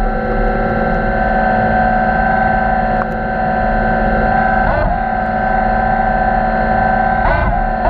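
Steady electric motor hum made of several tones, from an underwater robot's thrusters. The pitch dips and recovers briefly about five seconds in, and again near the end.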